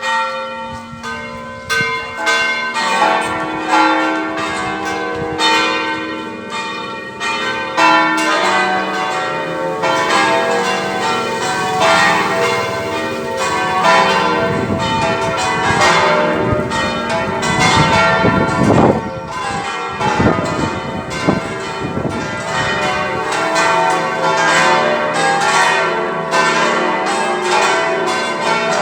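A set of six church bells ringing, their strikes overlapping so tones of several pitches ring on continuously; the strikes grow denser after the first several seconds.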